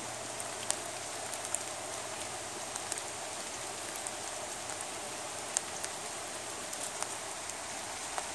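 Light rain falling on the river surface and muddy bank: a steady hiss with scattered sharp ticks of single drops.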